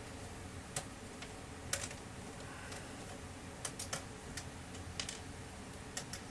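Scattered sharp clicks and taps, about a dozen at irregular intervals and some in quick pairs, from hand tools and parts being handled while a laser printer is taken apart.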